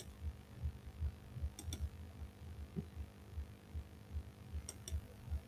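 Computer mouse clicks: a single click at the start, then two quick double clicks about a second and a half and nearly five seconds in, as tags are removed one by one. Underneath runs a low, uneven throbbing thump, two or three a second, with a faint steady electrical hum.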